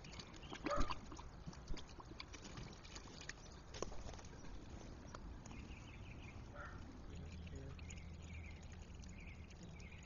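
Laundry greywater flowing out of an outlet pipe in a buried valve box, faint, with a few small knocks in the first few seconds and a steadier flow from about seven seconds in.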